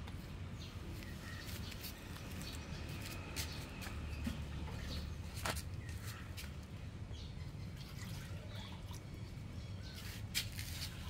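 Birds chirping in the background over a low steady hum, with scattered sharp clicks. About ten seconds in, a puppy noses into a plastic bowl of duck bones, with a louder click or two.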